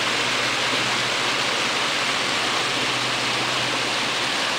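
Small mountain stream running over rocks and little cascades, a steady hiss of water.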